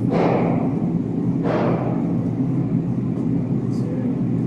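Steady, loud low rumble with a hum, with two brief rushing surges, one near the start and another about a second and a half in.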